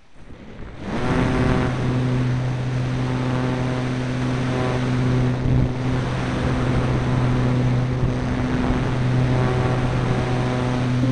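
The Parkzone Radian glider's electric motor and propeller start up about a second in and run steadily under power, a loud droning hum with wind rushing over the onboard camera.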